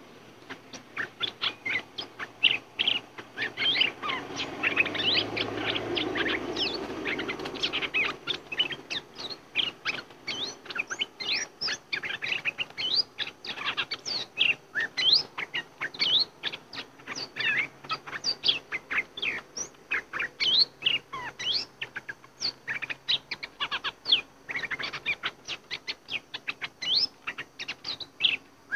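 Bulbuls calling in a steady stream of short, sharp, high chirps, several notes a second. About four to eight seconds in, a rustling flutter sounds under the calls.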